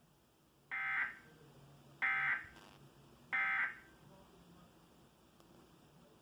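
Emergency Alert System End of Message signal: three short bursts of SAME digital data tones, about a second and a third apart, marking the end of the alert.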